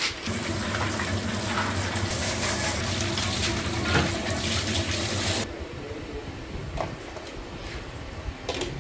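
Water running and splashing into a plastic bucket while aquarium filter parts are rinsed, cutting off abruptly about five and a half seconds in; a few faint knocks follow.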